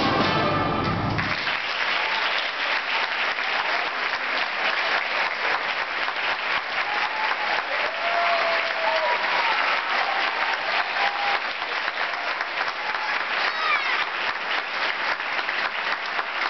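A middle-school concert band's last chord stops about a second in, then the audience applauds steadily, with a few cheers over the clapping.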